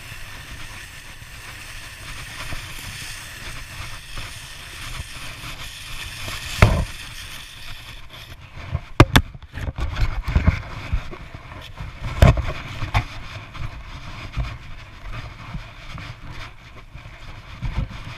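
Steady rumbling and scraping of movement over a packed-snow road, with several sharp knocks and bumps from about six seconds in.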